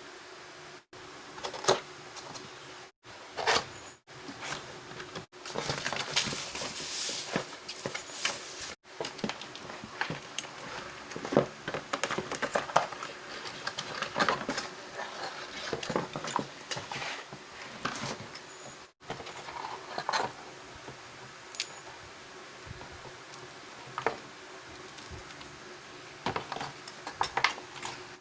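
Small hard objects being handled: irregular clicks, clatters and rustles, with several sudden brief cuts to silence between stretches.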